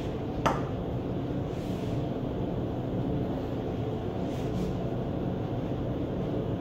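Steady low hum of room noise, with a single light knock about half a second in as the water-filled plastic soda bottle base is handled on the lab bench.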